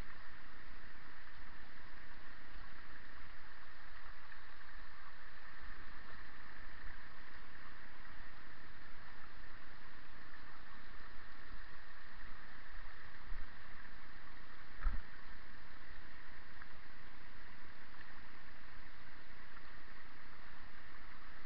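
Bicycle rolling down a rocky stream bed: a steady rushing noise with low jolts as the wheels go over stones, and one sharper knock about 15 seconds in.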